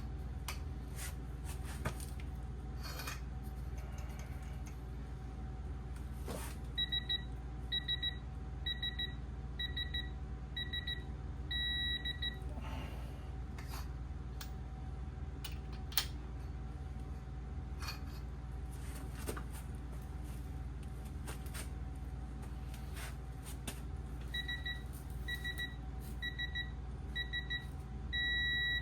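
Digital torque wrench beeping as main bearing cap bolts are tightened: a run of short beeps about one a second ending in a longer tone as the set torque is reached, heard twice. Scattered sharp clicks and knocks come in between.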